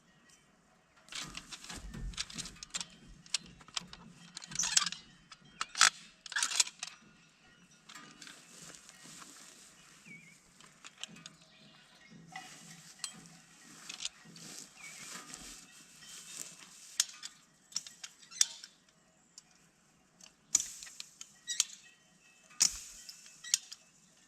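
Irregular metallic clinks, taps and scraping from hand work repairing a farm fence, with sharp knocks scattered throughout.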